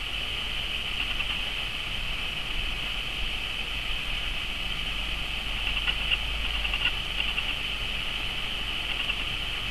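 Steady, shrill, high-pitched drone of insects in the grass, flickering slightly, over a low steady rumble.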